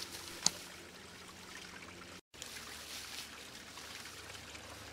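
Faint, steady rushing background noise with no voices. A single sharp click comes about half a second in, and the sound cuts out completely for a moment just after two seconds.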